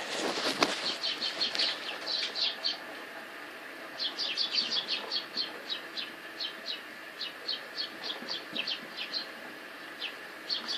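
Small birds chirping, many short high calls in quick runs with a pause around three seconds in, over a steady background hum. There is a brief rustle in the first second.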